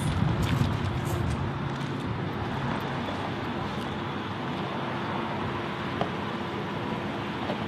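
The end of a hip-hop track fades out in the first second or two, leaving a steady, even noise with no distinct tones.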